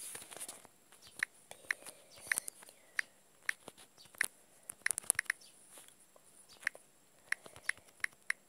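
Quick irregular taps and clicks of typing on a smartphone's on-screen keyboard, some in fast runs of two or three.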